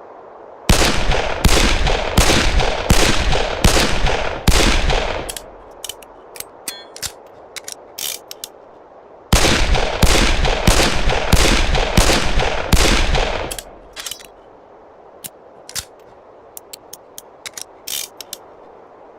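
Colt 1861 Navy percussion revolver fired in two strings of six shots, about one shot every 0.7 s. Each string is followed by a run of light metallic clicks.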